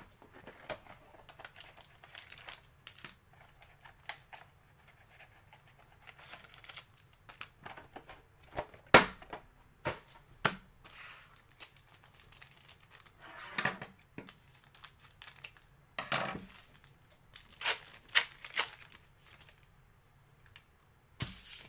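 Trading card pack wrappers crinkling and tearing open while cards are handled: a scattered run of short, sharp crackles, the loudest about nine seconds in.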